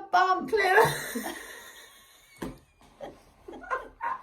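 People laughing, the laughter trailing off over the first second or so, with a single sharp click about halfway through.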